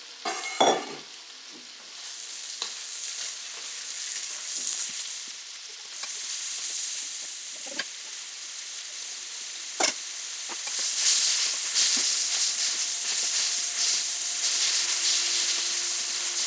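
Mushrooms sizzling as they fry in oil in a wok, with a utensil stirring them. There is a loud clatter about half a second in and a sharp knock near ten seconds, and the sizzling grows louder from about eleven seconds.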